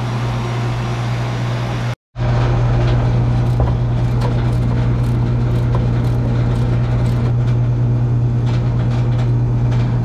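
Steady low hum of running air-conditioning equipment, with scattered light clicks from a ratchet wrench turning the brass service-valve stem on a new condenser to open it.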